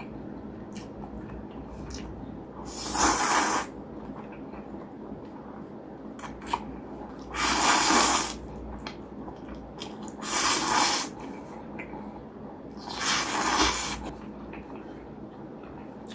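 Chewy acorn noodles being slurped loudly four times, each slurp lasting about a second, with quieter chewing and small mouth clicks in between.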